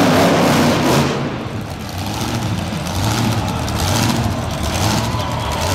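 Monster truck engine running with a steady low rumble, dipping in loudness about two seconds in and then rising again.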